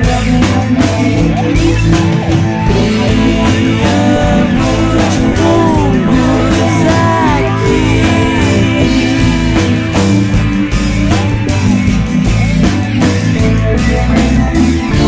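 Psychedelic rock recording playing at full level: electric guitar with lead lines that bend in pitch, over bass and a steady drum beat.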